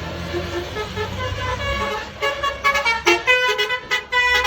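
Tour bus's 'telolet basuri' musical horn playing a quick melody of short notes that jump in pitch, starting about halfway in, over the low rumble of the bus's engine.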